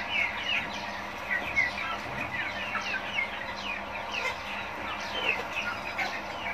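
A flock of half-grown village chickens calling all together: many short, high, falling peeps and chirps overlapping without a break.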